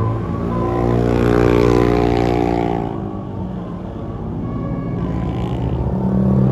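Heavy bus engine revving up and falling back over about two seconds, over a steady low engine hum.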